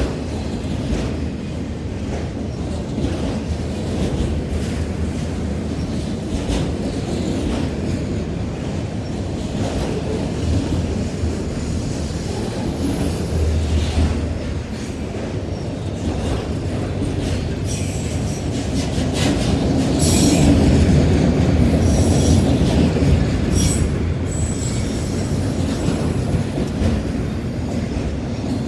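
Cars of a CSX freight train rolling past, a steady rumble with the wheels clicking over rail joints. From about two-thirds of the way in it gets louder, and the wheels squeal for several seconds.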